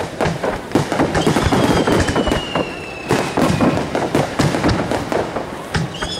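Fireworks display: many shells bursting and crackling in quick, overlapping bangs. A long whistling tone that falls slowly in pitch runs over them for about two seconds, starting about a second in, and another begins near the end.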